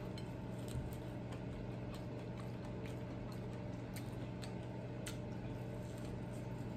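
Faint close-up chewing: scattered soft clicks and crunches of a mouth eating finger food, over a steady low hum.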